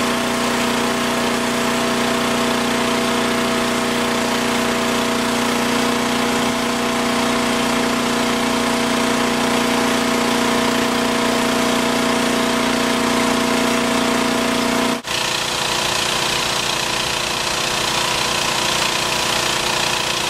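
Engine-driven machinery of an aquatic weed harvester and shore conveyor running steadily with a constant whine while unloading cut weeds. About fifteen seconds in the sound cuts off abruptly and changes to a different steady engine noise.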